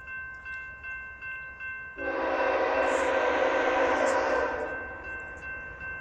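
Railroad crossing bell ringing about twice a second; about two seconds in, a BNSF freight locomotive's horn sounds one long blast of several tones together, lasting nearly three seconds, warning of the train's approach to the grade crossing.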